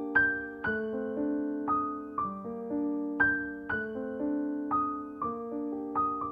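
Background piano music: gentle single notes and chords struck about twice a second, each ringing and fading.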